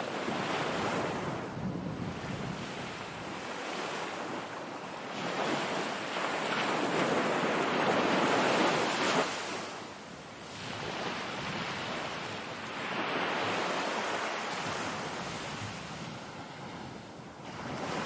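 Sea waves breaking and washing up a sandy beach, the surf rising and falling in long surges, the loudest about halfway through, with some wind noise on the microphone.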